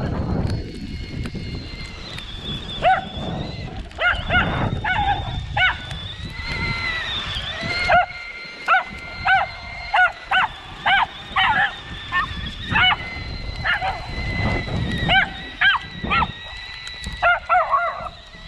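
A dog barking again and again in short, sharp barks, about one a second, thickest in the second half. Under the barks runs the steady high whine of an RC truck's electric motor, with a brief dip in pitch partway through.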